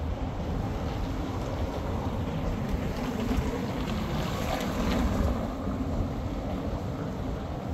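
Wind buffeting the microphone: a steady, low, rumbling noise that swells a little about four to five seconds in.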